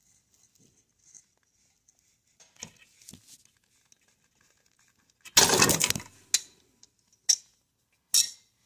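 Steel return spring of a Honda Metropolitan scooter's stand being stretched with pliers onto its hook. First come faint scrapes and ticks, then a loud metallic clatter a little past halfway as the spring snaps into place, followed by three sharp clicks.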